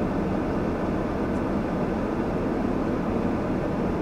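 Steady low rumble of vehicle and traffic noise inside a car with its window rolled down.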